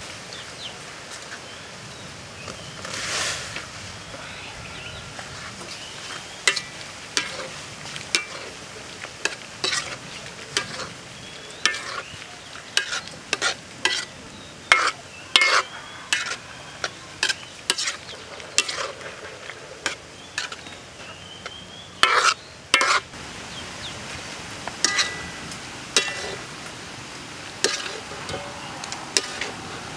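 A metal ladle stirring beef meatballs in a metal wok, clinking and scraping against the pan in irregular strokes that come thicker a few seconds in, with a pair of loud knocks later on. Under it runs a steady hiss of liquid bubbling in the wok.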